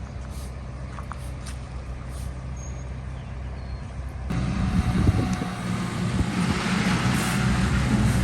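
Small bulldozer's diesel engine running steadily, then suddenly louder and rougher about four seconds in, with knocks over the engine note.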